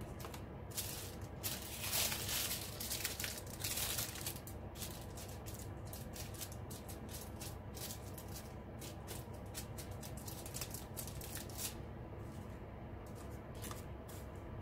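Small plastic bags of square diamond painting drills being handled and sorted: the bags crinkle and the drills rattle inside them, in dense handling noise for the first few seconds, then in scattered rustles and clicks.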